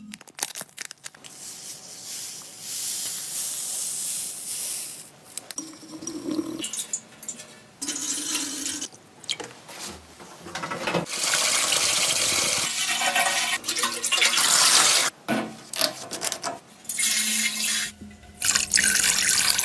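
Liquid pouring, sloshing and draining inside the steel fuel tank of a Ural M63 motorcycle as it is cleaned out. It comes in several separate runs with short breaks and knocks between them.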